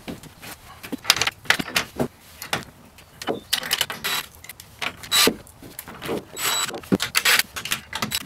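Irregular clicks, clinks and knocks of screws and a metal corner bracket being handled and set into a wooden stand, with a short whir of a cordless drill/driver about two thirds of the way through.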